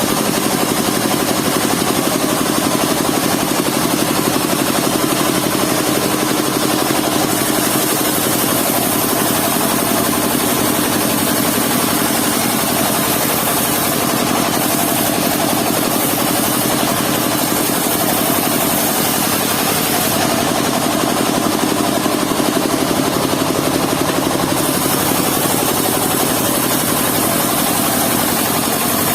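The engine of a mobile circular-saw sawmill running steadily, with a constant hum.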